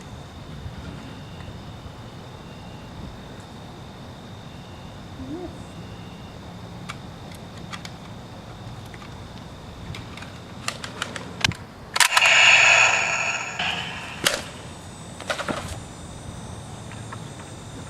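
Gunshot-like bang about twelve seconds in, sudden and loud with a trailing tail, after a few sharp clicks. A shorter crack and a second brief burst follow over the next few seconds, over a steady chirring of insects.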